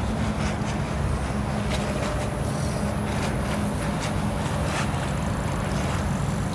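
Steady low engine drone, an unbroken hum with a constant pitch, most likely a boat's engine running nearby.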